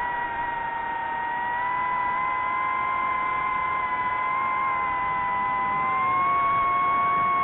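Multirotor drone's motors and propellers whining steadily, the pitch drifting slowly with throttle and rising a little near the end.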